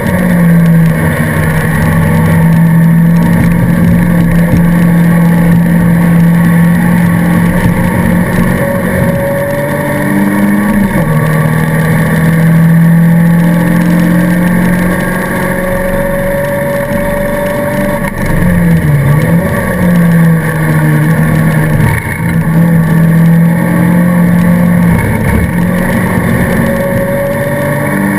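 Alfa Romeo 155 race car engine heard from inside the stripped cabin, held at high revs for long stretches. Its pitch drops briefly and climbs back a few times, at gear changes or lifts.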